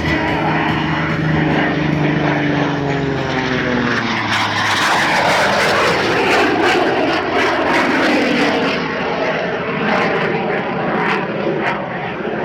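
Jet-assisted Waco biplane flying past: its propeller engine note drops in pitch over the first four seconds or so as it goes by, then gives way to a loud, steady rushing noise of engine and jet.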